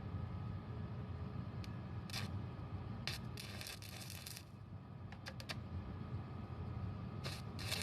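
Scattered short scrapes and clicks, as of metal parts or tools being handled, over a steady low hum.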